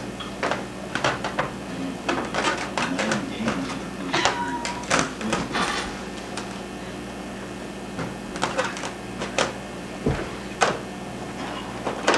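Long inflated latex balloon squeaking and rubbing against hands as it is gripped and twisted: a series of short, irregular squeaks and rubs.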